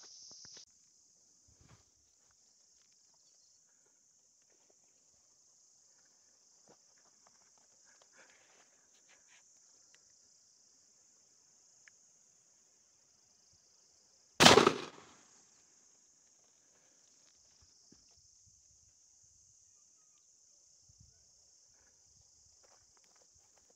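A single shotgun shot about halfway through, sharp and loud, dying away within a second. A steady high-pitched insect buzz runs throughout, with faint rustles and steps in the grass.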